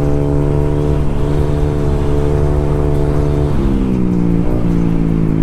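Honda scooter's single-cylinder engine and exhaust humming at a steady cruising speed, dropping in pitch a little over three and a half seconds in as the throttle eases off, with wind rumble over the rider.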